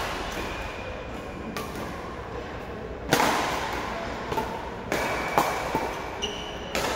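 Badminton rackets striking a shuttlecock in a rally: sharp hits every second or so, irregularly spaced, each with a short echo from the hall.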